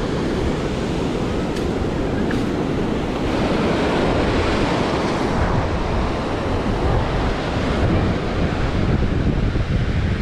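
Ocean surf breaking and washing up the beach, with wind buffeting the microphone in a steady low rumble.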